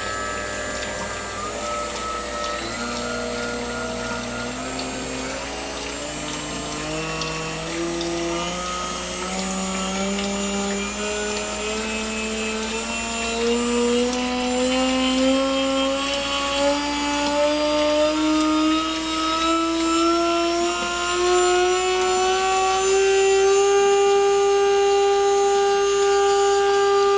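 1.5 kW water-cooled spindle motor on a Huanyang VFD, whining as it spins up toward 24,000 rpm. The pitch climbs in small steps for about twenty seconds, then holds a steady high whine near the end.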